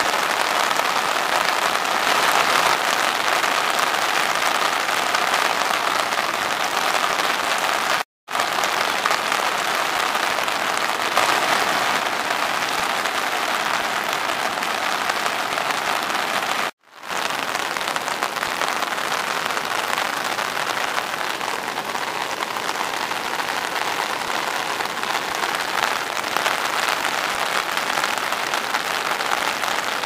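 Steady hiss of heavy rain and rushing floodwater, broken by two brief silent cuts about eight and seventeen seconds in.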